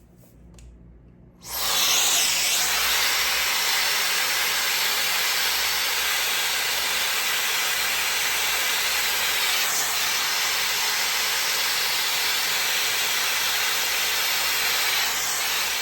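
High-speed hair air styler with a brush nozzle switched on about a second and a half in, blowing a steady loud rush of air, then switched off near the end.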